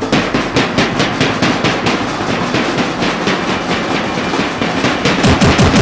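Music with a fast, steady drumbeat of about five strikes a second, growing louder and fuller near the end.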